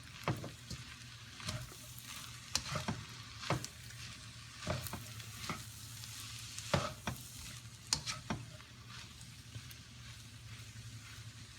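Jasmine shrimp fried rice sizzling in a hot pan while it is stirred and tossed: a steady sizzle broken by irregular scrapes and knocks of the utensil against the pan.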